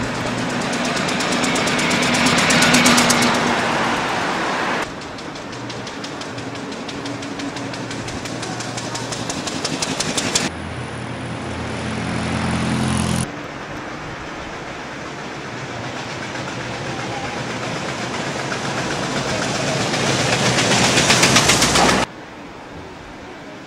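Old car engines passing close by one after another, each with a rapid, even beat that grows louder as the car approaches. The sound breaks off abruptly several times, and a deeper, lumpier engine note comes between the cuts.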